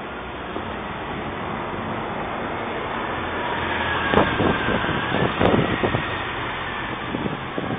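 Steady city street traffic noise, with a faint whine in the middle and a cluster of short clatters about four to six seconds in.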